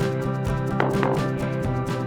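Background music with a plucked guitar and a steady beat.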